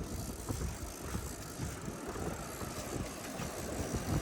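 Fishing reel's clicker ratcheting in faint, irregular ticks as a hooked fish pulls line off, over steady wind noise on the microphone.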